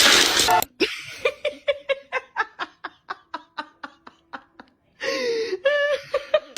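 A person laughing in a long run of short, evenly spaced bursts, about four a second. A louder stretch of voice follows near the end.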